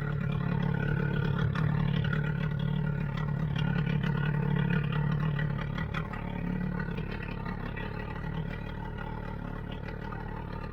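A boat engine running steadily, its hum easing off after about six seconds, with faint light clatter.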